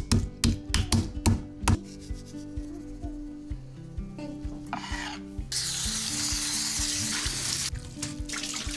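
A meat mallet pounding raw chicken breasts on a cutting board, about seven sharp strikes in the first two seconds. Near the end, a tap runs for about two seconds as black beans are rinsed in a mesh strainer, over steady background music.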